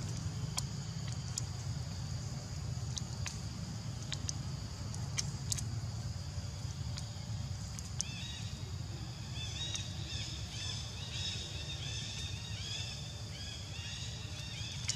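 Macaque crunching an insect, sharp crisp clicks through the first half, over a steady low rumble and a constant high buzz. From about eight seconds in, rapid high chirps repeat over it.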